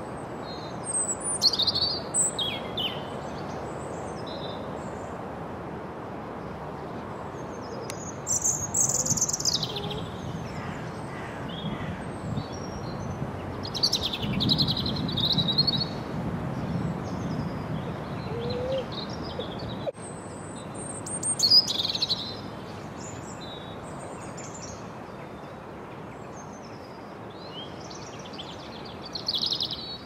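European robin singing: about five short, high, quickly warbling phrases, with pauses of a few seconds between them, over a steady background hiss.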